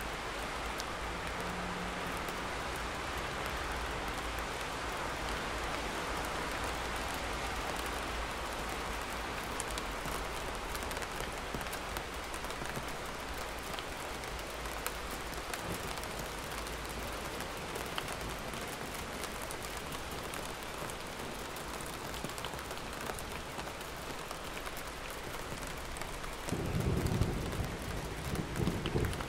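Steady rain falling, with a low rumble of thunder a few seconds before the end that is the loudest part.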